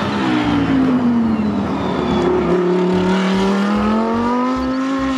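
Race car engine sound. The engine note drops over the first two and a half seconds or so, then climbs slowly and steadily.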